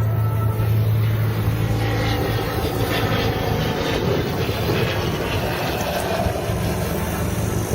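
Helicopter running steadily: a constant low hum under an even rush of rotor and engine noise.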